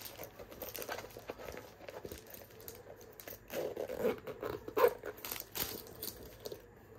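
Plastic packaging crinkling and rustling as a new handbag is handled on top of it, in irregular scratchy bursts that get louder about three and a half to five seconds in.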